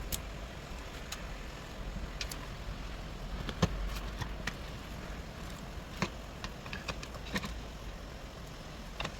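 Scattered light clicks and knocks from ski binding parts being handled and fitted, with one louder knock about three and a half seconds in.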